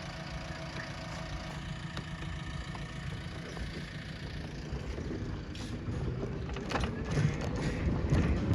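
Diesel engine of a backhoe loader running steadily, with knocks and clatter growing louder over the last few seconds.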